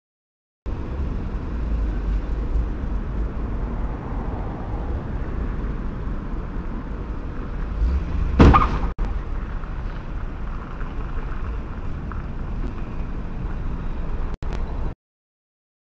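Steady low rumble of street traffic heard through an outdoor camera microphone, with one sharp, loud bang about eight and a half seconds in.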